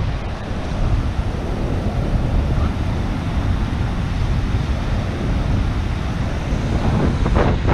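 Wind buffeting the microphone over the steady wash of surf on the sand.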